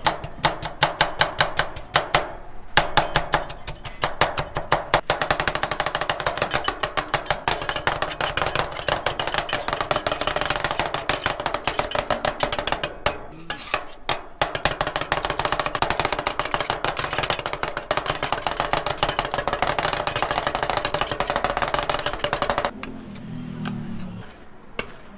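Two steel spatulas chopping very fast against a frozen steel ice cream plate, a rapid clatter of metal strikes as the cream base and cookies are chopped and mixed. Near the end the chopping stops and gives way to softer scraping as the mixture is spread thin across the plate.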